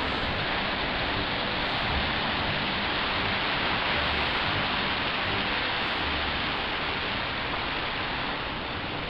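Steady rushing noise of ocean surf on a rocky shoreline, with a low rumble underneath.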